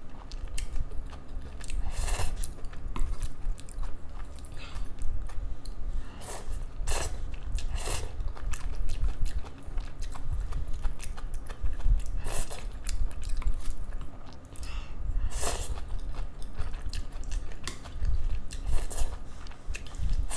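Close-miked chewing of soft noodles, with about six short, loud slurps spread through the stretch as more noodles are drawn into the mouth.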